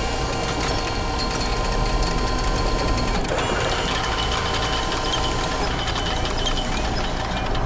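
Machinery sound effect: a construction vehicle's engine running with steady mechanical whirring and several held whining tones. The high whine changes about three seconds in and fades near the end.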